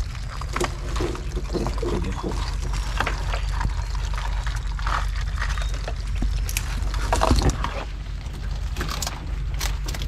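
Water splashing and dripping from a wet crab net being hauled in, with scattered small knocks over a steady low rumble.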